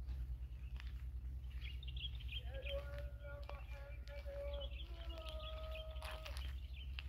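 Small birds chirping over a steady low rumble. In the middle come two long, steady-pitched tones: the first lasts about two seconds, the second a little over one.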